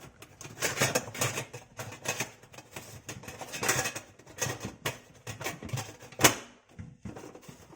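Plastic drain filter of a dishwasher being handled: twisted out of and back into its seat in the sump, with a run of light clicks and clatter. One sharper click comes about six seconds in.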